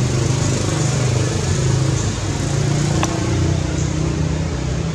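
A motor engine running steadily, a low hum over an even hiss, with a single faint click about three seconds in.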